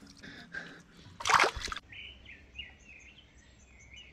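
A short burst of noise about a second in, the loudest sound, then a bird chirping repeatedly in short high notes.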